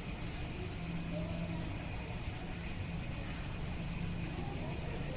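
Steady low mechanical hum with a faint murmur of distant voices.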